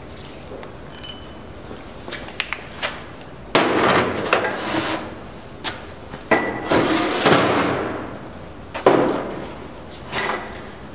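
Steel tooling of an Accu-Turn brake lathe clanking and scraping as the cutter is changed by hand, with the lathe not running. A few light clicks about two seconds in, then a series of loud metal clanks, some ringing briefly.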